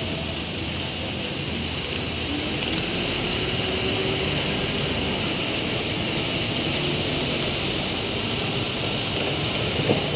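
Steady rain hissing on wet pavement, with the low rumble of city traffic underneath. A single short knock just before the end.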